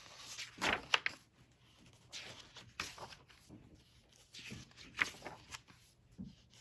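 Pages of a hardcover picture book being turned and smoothed flat by hand: several soft paper swishes and rustles, with a couple of sharper flicks among them.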